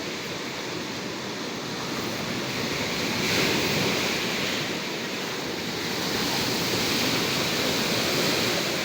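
Ocean surf breaking on a beach: a steady wash of waves that swells about three seconds in and again later on.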